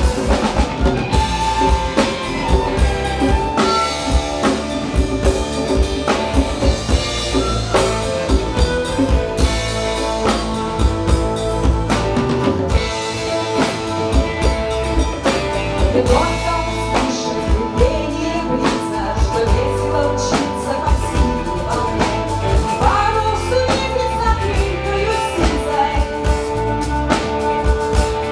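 Folk-rock band playing live, a drum kit keeping a steady beat under bass, guitars and singing.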